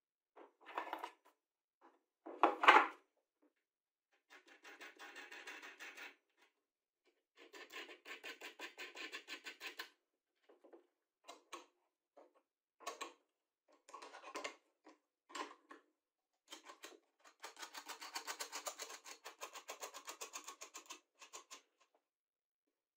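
Steel bolts and nuts being set into a plywood jointer table and tightened with a wrench. There is a sharp knock a few seconds in, then several stretches of rapid metallic ticking and scraping as the nuts are run down the threads, with short clicks in between.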